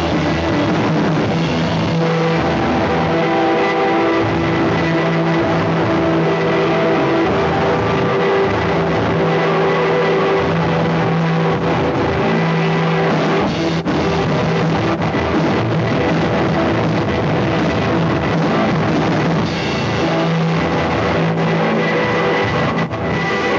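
Live rock band playing an instrumental passage with no vocals: electric bass, electric guitar and drum kit. The sound is recorded on VHS tape and comes across rough, with the top end cut off.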